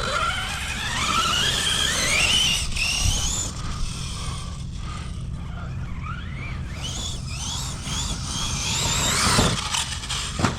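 Brushless electric motor of a 6S radio-controlled truck whining, climbing steadily in pitch as it accelerates over the first few seconds, then a series of shorter rising whines with repeated throttle bursts later on.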